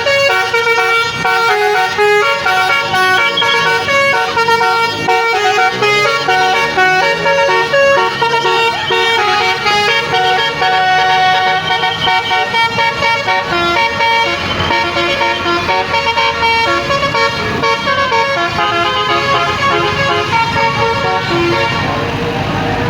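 A bus's basuri musical air horn (the Indonesian 'telolet' horn) playing a melody. Several notes sound together and change pitch every fraction of a second.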